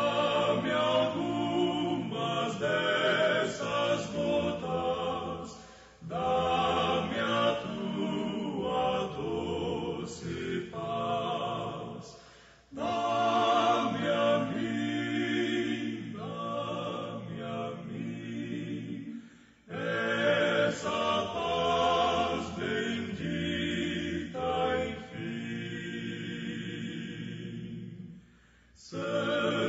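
Choir singing a slow hymn in long phrases of about six or seven seconds, each followed by a brief pause.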